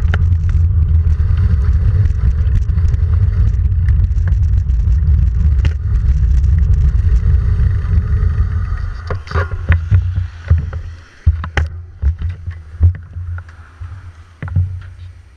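Wind rushing over a handlebar-mounted action camera's microphone as a road bike is ridden at speed, a loud low rumble that fades as the bike slows about two-thirds of the way through. After that come irregular knocks and clicks from the bike and its handlebar mount.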